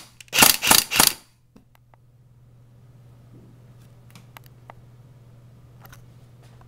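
CYMA CM046 AK-47 electric airsoft gun firing three sharp shots in quick succession about a second in, followed by a few faint clicks.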